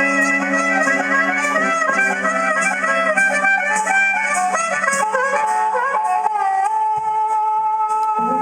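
Blues band playing an instrumental introduction: a wind-like lead instrument plays a melodic line over a steady low chord, settling on one long held note about halfway through.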